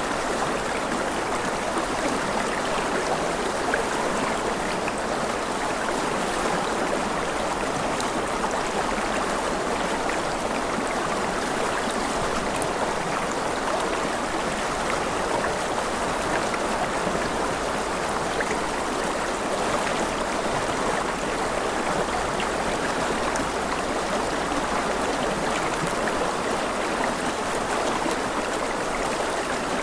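Running water, a steady even rush that does not change.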